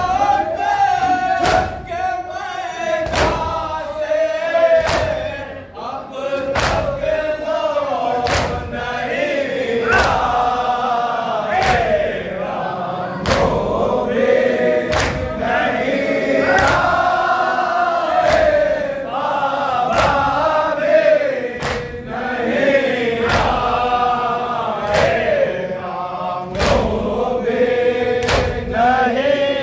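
A group of men chanting a nauha, a Shia lament, in unison behind a lead reciter. Their hands strike their chests in matam, keeping a steady slapping beat about once a second under the singing.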